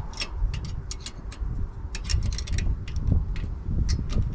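Irregular metallic clicks and clinks of hand work at a car's bare rear wheel hub, taking out the small guide pins, over a low fluctuating rumble.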